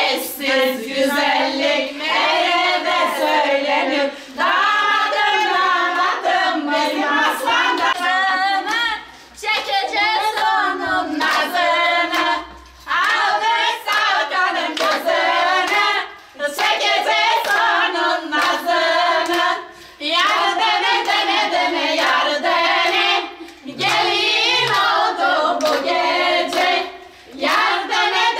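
A group of voices singing together in phrases of three to four seconds, each followed by a brief pause, with hand claps.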